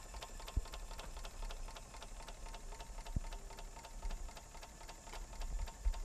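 A 1/10-scale Markie model ploughing engine running on compressed air, making a rapid, steady ticking beat. Two soft low thumps come through, about half a second in and again about three seconds in.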